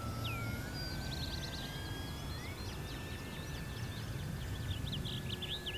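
Electric motor and propeller of an FMS 1500mm Cessna 182 foam RC plane whining in flight, one steady tone that dips slightly, then slowly rises in pitch and levels off. Birds chirp rapidly in the background.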